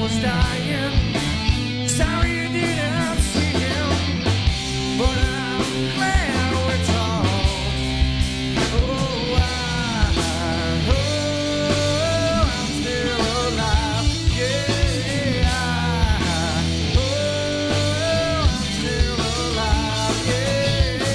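Studio-recorded rock song: a male singer over distorted electric guitars, bass guitar and a driving drum beat.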